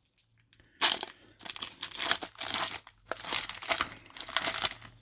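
Foil trading-card pack wrappers crinkling in gloved hands, in several bursts starting about a second in.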